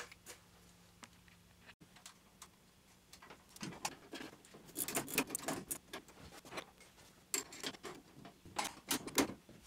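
Light metallic clicks and clinks as a throttle linkage rod with brass bushings and nylock nuts is fitted by hand to a carburetor's throttle arm, in scattered clusters from about three and a half seconds in. A wrench clicks on the nut near the end.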